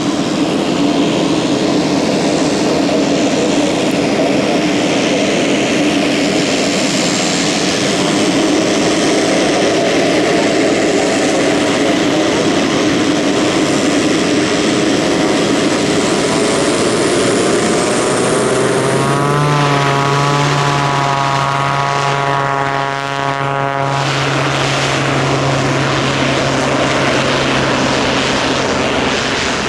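Pilatus PC-12 NG single-engine turboprop running on the ground while taxiing and lining up, a steady loud turbine whine with propeller drone. About two-thirds through, a deeper droning hum with a buzzing note comes in for a few seconds as the propeller's pitch and power change, then blends back into the turbine noise.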